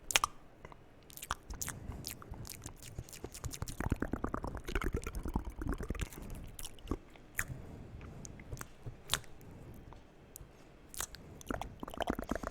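Close-miked ASMR mouth sounds: rapid wet clicks and smacks, thickest from about three to six seconds in and picking up again near the end.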